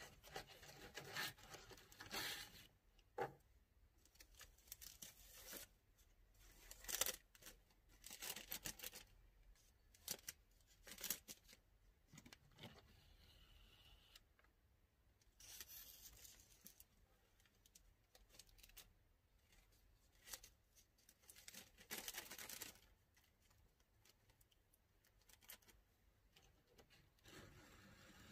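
Thin clear plastic bags rustling and crinkling in short, irregular bursts as bundles of incense sticks are handled and slid into them.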